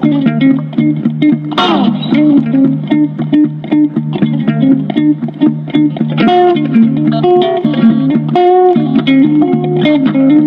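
Background music led by guitar, with a steady bass and a melody of plucked notes.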